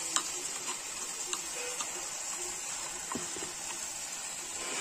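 Onions, potatoes and spice paste sizzling softly in oil in a steel kadai, with a few scattered clicks and scrapes of a metal spatula against the pan as turmeric powder is stirred in.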